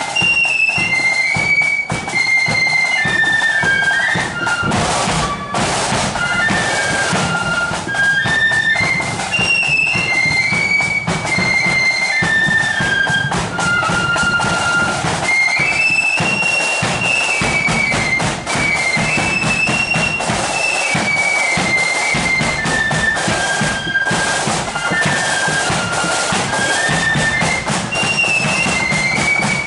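Marching flute band playing a tune in unison on shrill side-blown flutes, the melody stepping up and down in short notes, with drums beating time underneath.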